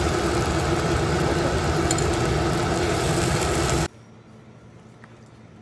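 Electric motor running loudly and steadily, then stopping abruptly about four seconds in, leaving only quiet room tone.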